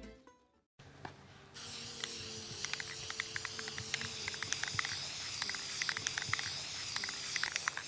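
Aerosol spray paint can hissing steadily, starting about a second and a half in after near silence, with many light clicks through it.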